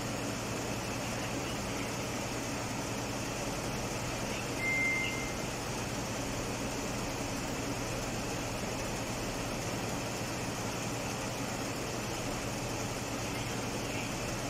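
Mazda CX-9 engine idling steadily. A short high beep sounds once, about five seconds in.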